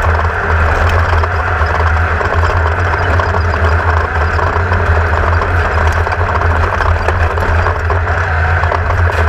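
Class 1600 off-road race car's air-cooled VW 1600 engine running steadily: a constant, unbroken low drone with a dense rumble and rattle over it.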